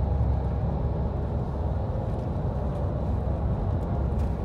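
Steady low rumble of a coach's engine and tyres at highway speed, heard from inside the passenger cabin.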